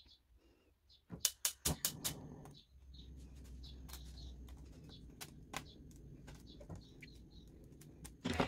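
Several sharp clicks and knocks about a second in, then a low steady hum with scattered lighter clicks and faint bird chirps.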